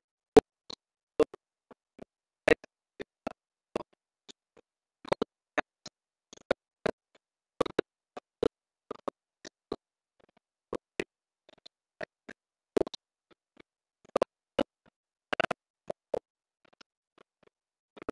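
Irregular single clicks and taps, about two a second, each short and sharp with silence between them, the loudest near the start.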